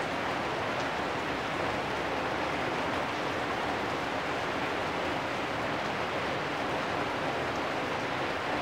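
Steady rain falling on corrugated metal roofs.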